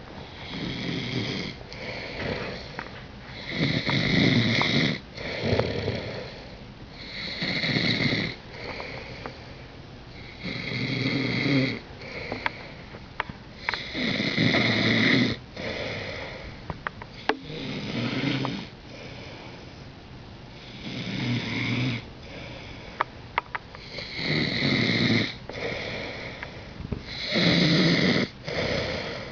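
Regular snoring: a loud snore about every three and a half seconds, with quieter breathing between snores and a few faint clicks.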